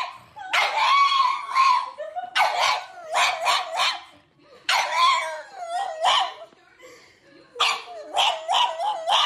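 A dog vocalizing in high, wavering calls whose pitch rises and falls, in four bouts of a second or two each with short pauses between.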